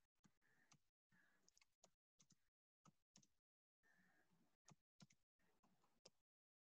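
Very faint computer keyboard typing: irregular, scattered key clicks.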